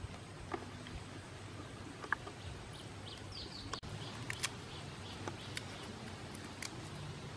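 Small scattered clicks and crackles of a cooked dung beetle's hard shell being picked apart by fingers, over forest background with a brief high bird chirp a little past the middle.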